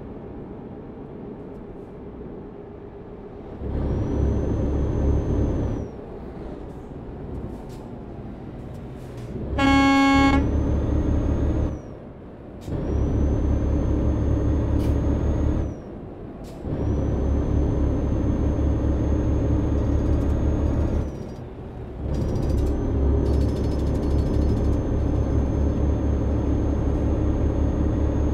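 A vehicle's engine pulling hard in five stretches of a few seconds each, easing off in between, with a faint high whistle that rises as each stretch begins and drops as it ends. A short horn blast sounds about ten seconds in.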